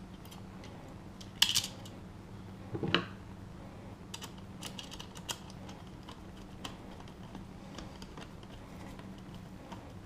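Screws being driven by hand into a deadbolt's interior mounting plate: a couple of sharp metal knocks in the first few seconds, then a run of small, irregular clicks and ticks as the screwdriver turns. A steady low hum sits underneath.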